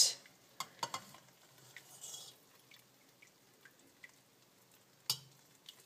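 Cooking liquid dripping and trickling back into a stainless steel pressure cooker as a joint of pickled pork is held above it, with a few light clinks of a metal carving fork and slotted spoon against the pot, the sharpest about five seconds in.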